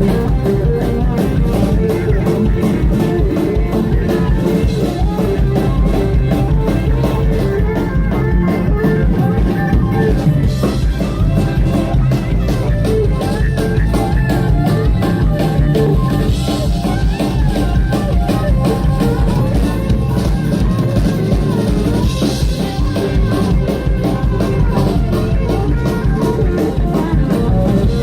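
Instrumental band music from the live stage: a drum kit keeps a steady beat under electric guitar and bass.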